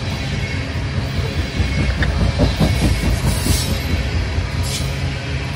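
Loaded coal hopper cars of a freight train rolling past: a steady low rumble of steel wheels on rail with clicking and knocking over the joints, and brief high-pitched wheel squeals about three seconds in and again near the end.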